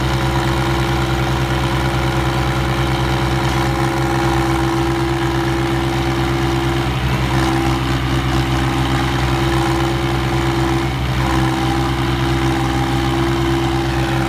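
The diesel engines of a John Deere 5050D and a Sonalika 35 DI tractor run steadily under heavy load as the two pull against each other. The engine note shifts briefly about seven seconds in and again about eleven seconds in.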